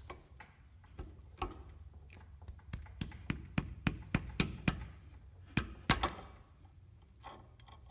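Sharp metal clicks and taps from a universal puller working the old axle oil seal out of a Toyota solid front axle knuckle. There are scattered clicks and a fairly even run of about three a second in the middle.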